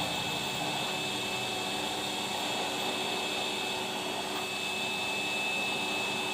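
Sharp EC8305 400-watt vacuum cleaner running steadily: a constant rush of air with a thin high whine over it.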